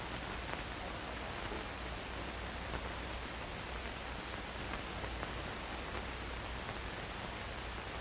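Steady hiss with a low hum from an old film print's soundtrack, with a few faint clicks and no dialogue or music.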